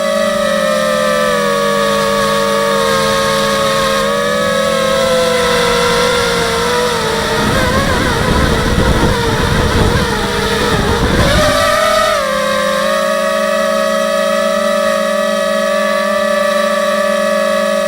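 The electric motors and propellers of a 250-size FPV quadcopter whine steadily, their pitch drifting with the throttle. From about seven and a half to twelve seconds in, the sound turns rougher and wavers, then settles back to the steady whine.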